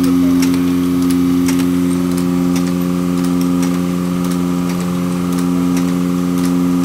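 Buenaventura 16-pocket gatherer (collator for folded signatures) running at 3600 sets per hour: a steady motor hum with regular sharp clicks about twice a second.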